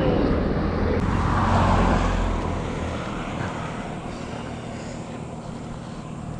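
A road vehicle passing by, its noise swelling over the first two seconds and then slowly fading away into steady outdoor background.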